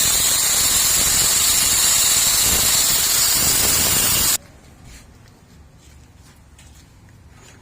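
A loud steady hiss that cuts off suddenly about four seconds in, followed by faint light ticking.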